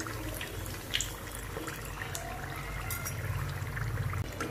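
Onion samosas sizzling and bubbling as they deep-fry in hot oil in a pan, a steady crackle throughout. A couple of light clicks of a slotted spoon against the pan come near the start and about a second in as the samosas are turned.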